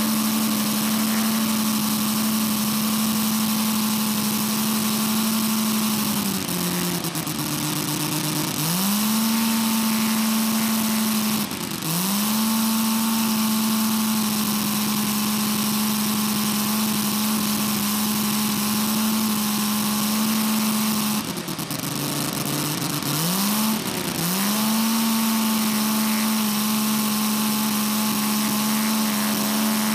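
Quarter-scale model Bentley BR2 rotary aero engine running steadily at speed on the ground, propeller turning. Three times it is throttled back, around 6, 11 and 21 seconds in, and each time the pitch glides back up as it picks up speed again.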